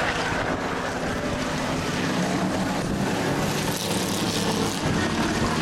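Several race cars' engines running at speed on a dirt oval, heard together as a steady mix of overlapping engine tones over road noise.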